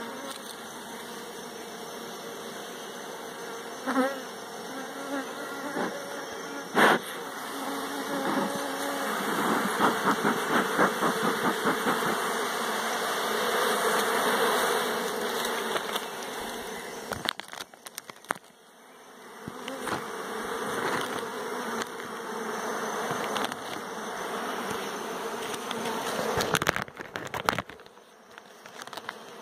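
Honeybee colony buzzing in an open wooden hive box, a steady hum throughout. There are two sharp knocks about 4 and 7 seconds in.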